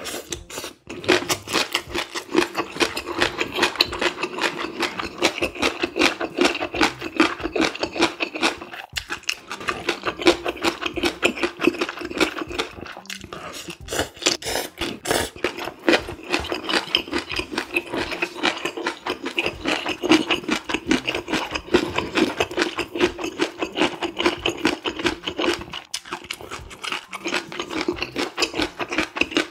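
Close-miked eating sounds: rapid, wet chewing clicks and mouth smacks as spicy stir-fried squid, pork and noodles are chewed, with occasional slurps.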